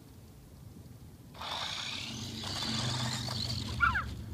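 Toy RC monster truck driving, its small electric motor and gears whirring and its tyres brushing over dry grass, starting about a second and a half in. A brief, loud, high squeal with falling pitch comes near the end.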